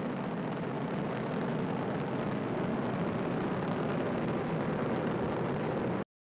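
Falcon 9 rocket launch, a steady, even rumble that cuts off abruptly about six seconds in.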